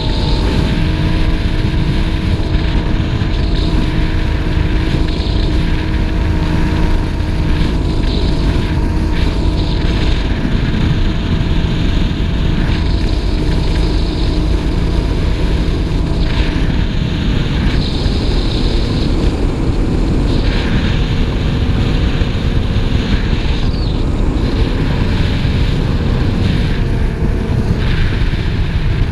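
Speedboat engine running steadily under way, with wind buffeting the microphone. Its steady engine note fades into a rushing noise a little past halfway.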